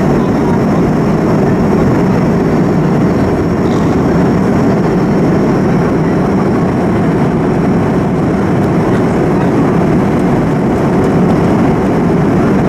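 Steady roar of a Boeing 737-200 in flight on initial descent: its Pratt & Whitney JT8D turbofan engines and the rush of air, with a thin steady high whine above it.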